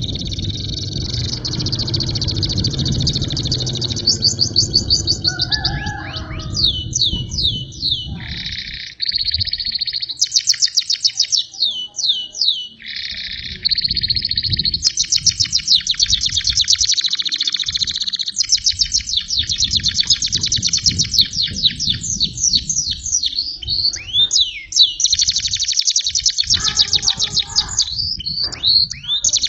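Canary singing a long, continuous song of fast trills, buzzy runs and rapid downslurred notes, its song filled in with learned phrases of the bar-winged prinia (ciblek).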